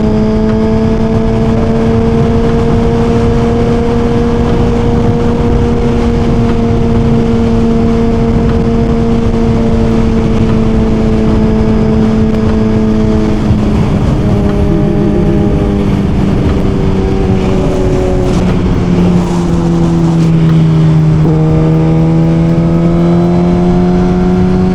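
Suzuki GSX-R1000's inline-four engine running at a steady cruise under wind rush. Its pitch drops about halfway through, dips lowest a little later, then climbs slowly again near the end.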